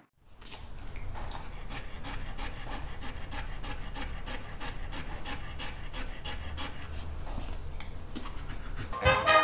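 A gray wire-haired dog panting steadily in even, repeated breaths. Brass music comes in near the end.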